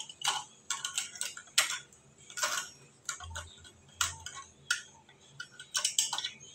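Chrome-plated wall mixer fittings clicking and clinking against each other as they are handled and fitted by hand: light metal ticks and taps at irregular intervals.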